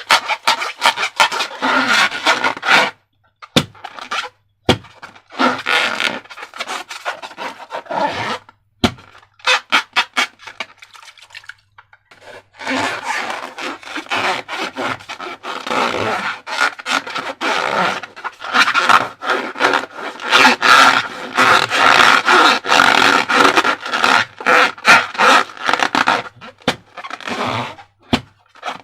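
Hands squishing and stretching slime: a dense run of sticky crackles and squelches, broken by a few short pauses.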